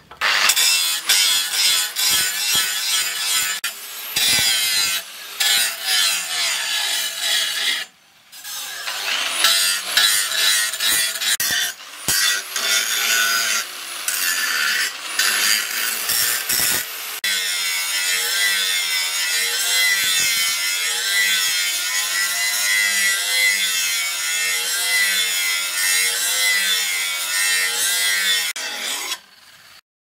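Electric angle grinder with an abrasive disc grinding the steel of an axe head cut from a tractor ploughing disc: a loud, harsh hiss of metal being abraded. It breaks off briefly a few times and resumes.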